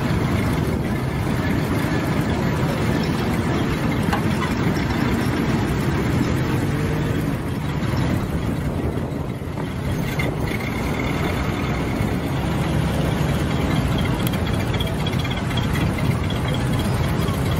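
Heavy truck engines running steadily at low speed as the trucks roll slowly past.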